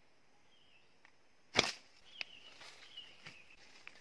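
Rubber-band slingshot released: one sharp snap of the bands about one and a half seconds in, followed by a few fainter ticks.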